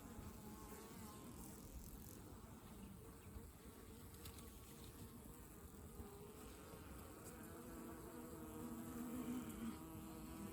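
Honey bees buzzing around an open hive, a faint wavering hum that grows louder near the end.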